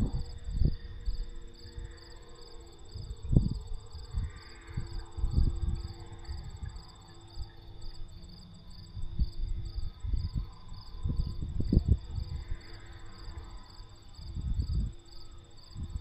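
Crickets chirping in a steady, even pulse, with a higher insect trill running underneath. Irregular low rumbles of wind buffet the microphone and are the loudest sound.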